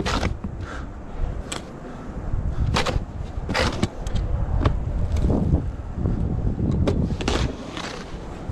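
Snow shovel scraping and knocking against pavement in irregular strokes, with wind buffeting the microphone as a low rumble.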